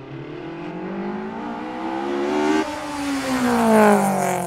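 Car engine accelerating, its pitch climbing for about two and a half seconds, then dropping suddenly. The pitch then falls steadily as the sound grows louder, loudest near the end, like a car speeding past.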